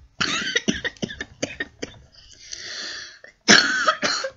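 A girl's wordless vocal sounds: a run of short, sharp breathy bursts, a soft breathy hiss in the middle, and a louder voiced sound with a gliding pitch near the end.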